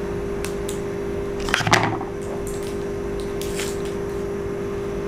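Plastic wrapping crinkling and rustling as it is pulled off a new fishing rod's tip, with the loudest burst about one and a half seconds in and smaller crackles before and after, over a steady hum.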